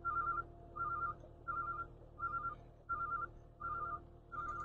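Electronic warning beeper on the pipe-pulling boring machine, giving about seven short pulsing beeps at an even pace, over a faint steady machine hum.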